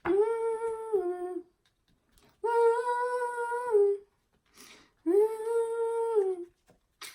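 A woman humming three long notes in a row, each held steady and then dropping a step in pitch at its end.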